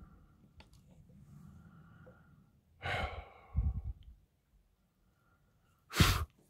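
A man sighs heavily about three seconds in, followed by low thumps on the microphone. Near the end a short, loud puff of air hits the microphone.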